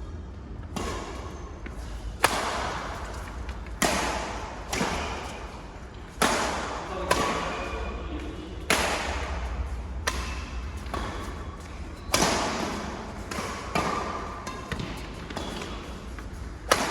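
Badminton rackets striking a shuttlecock in a rally, sharp hits about every one to one and a half seconds, each echoing in a large hall.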